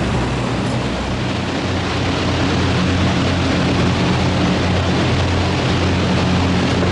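Steady, loud mechanical hum over an even rushing noise. About a second in, the deep rumble drops away and a slightly higher hum takes over.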